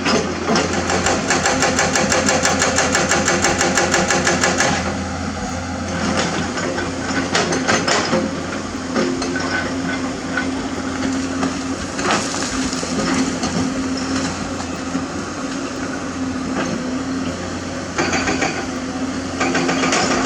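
Hydraulic excavator's diesel engine running. For about the first five seconds a fast, rhythmic knocking runs over it; after that the engine goes on steadily with a few separate knocks.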